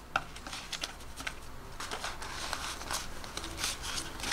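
Paper banknotes rustling and flicking as cash is handled by hand, with a few crisp clicks and snaps of the bills.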